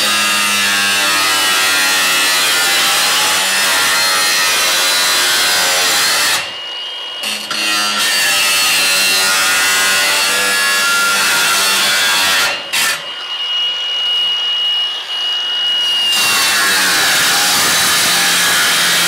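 A power tool cutting the tops off sheet-metal wall cladding, running in long cuts with two brief breaks, about six and twelve seconds in.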